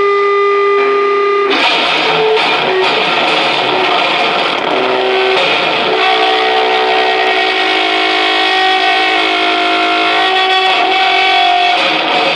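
Live noise music: a loud, dense wall of distorted amplified noise with held drone tones over it. The texture changes abruptly about a second and a half in, and a new set of held tones starts around six seconds in.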